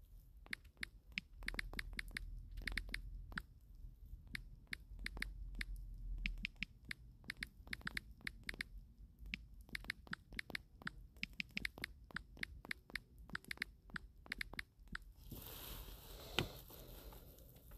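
Fingertip taps on a smartphone touchscreen while typing on its on-screen keyboard: quick, irregular taps, several a second. They stop about two seconds before the end, and a short hiss with one louder tap follows.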